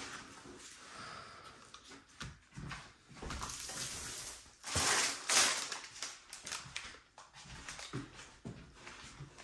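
Clear plastic cover film on a rolled diamond-painting canvas crinkling and rustling as hands unroll it and smooth it flat, with the loudest rustle about five seconds in.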